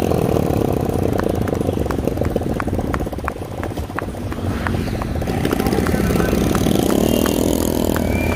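Motorcycle engine running at low road speed, its pitch slowly rising and falling, with a regular light ticking about two or three times a second.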